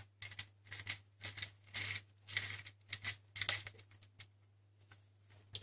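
Small screwdriver turning screws at the optical-bay drive caddy inside an opened MacBook Pro: a run of short scratchy, clicking bursts, several in quick succession, stopping about four seconds in.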